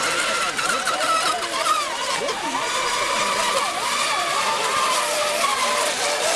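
Several electric Mono 1 racing model boats running at speed together, their motors whining in overlapping tones that rise and fall as they race around the buoys, over a steady hiss.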